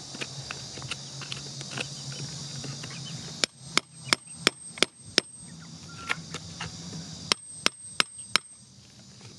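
A pointed metal digging tool striking hard, stony soil around a buried green crystal. It makes sharp knocks in two runs: six, about three a second, from a third of the way in, then four more near the end, each run with a thin high ring.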